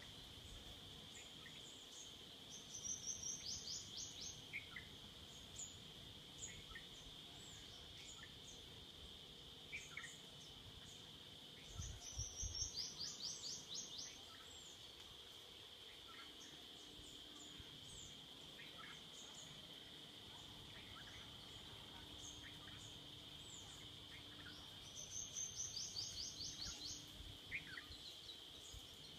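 Forest ambience: a steady, high insect drone runs throughout. A bird sings a quick run of rapid notes three times, about three seconds in, near the middle and near the end, with scattered single chirps in between.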